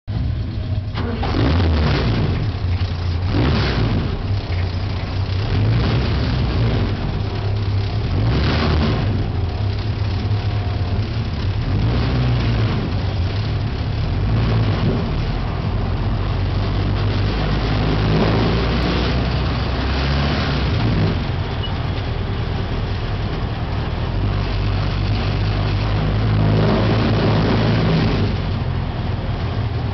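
Race car engines running steadily, with cars passing close by several times, each pass a brief swell in loudness.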